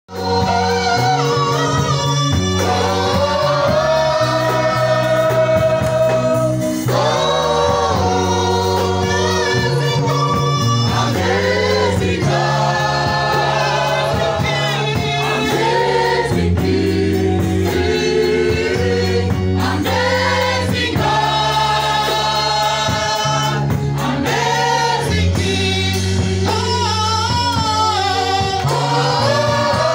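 Live gospel worship song: a woman leads on a microphone with a group of backing singers, over a band with a steady bass line.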